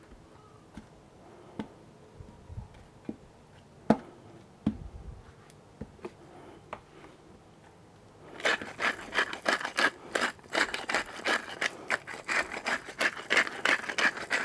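A few scattered light clicks and knocks, the sharpest about four seconds in; then from about eight seconds a hand spice mill grinds salt and pepper over the meat, a steady run of rapid rasping clicks.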